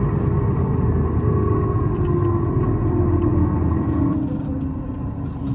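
Interior running noise of an Isuzu Erga city bus (PKG-LV234L2), a bus singled out for an unusual noise: a steady low rumble with a whine that falls slowly in pitch as the bus slows, easing off about four seconds in.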